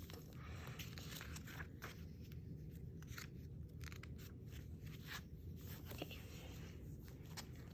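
Paper planner pages being turned and smoothed down by hand: a faint, irregular string of quick paper rustles and crinkles.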